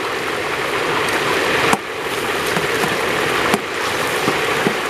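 Pork chunks for carnitas frying in a large aluminium pot of hot fat, the fat bubbling and sizzling steadily. Two sharp clicks break in, a little under two seconds in and again about three and a half seconds in.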